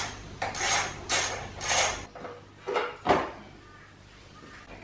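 Ratchet with an 8 mm socket turning out a bolt on a motorcycle's plastic side plate: four short ratcheting strokes about half a second apart, then two sharper plastic knocks about a second later as the side plate comes away.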